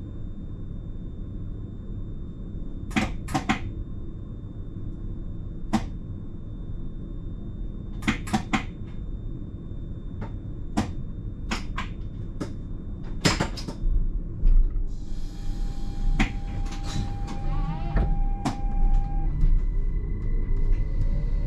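Driver's cab of an electric train standing at a station: a steady low hum with a series of sharp clicks and knocks. About two-thirds of the way in comes a burst of hiss and some steady tones, and near the end a whine rising in pitch as the train starts to pull away.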